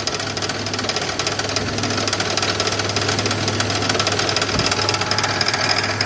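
2001 Monte Carlo SS's 3800 Series II V6 running with its hood open, with a rapid, even knocking that is loudest on the passenger side toward the back of the engine. The cause is uncertain: the owner wonders whether it could be a pushrod or the AC compressor bearing.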